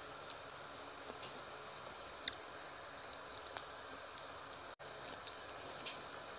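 Close-miked eating by hand: sparse soft wet clicks and smacks of chewing and of fingers working rice and curry, over a steady hiss. The sound drops out for an instant just before 5 seconds.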